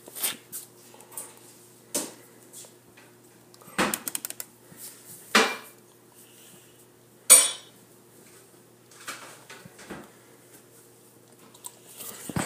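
Scattered sharp clicks and clatters a second or two apart, like household objects being knocked or handled, over a faint steady hum. There is a quick rattle of clicks about four seconds in, and the loudest clack comes a little past the middle.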